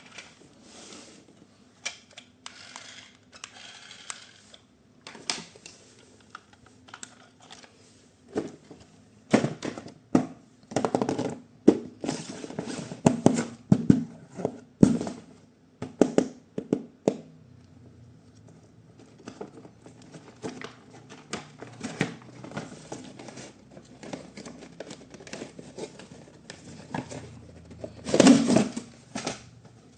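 Hard plastic toy parts and packaging being handled: irregular clicks, taps and knocks, densest in the middle and with a louder clatter near the end.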